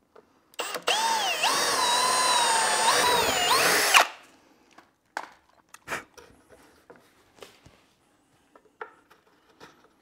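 Milwaukee cordless drill boring into a wooden vise leg for about three seconds, its motor whine dipping and rising in pitch and then stopping. A few light knocks and clicks of wood being handled follow.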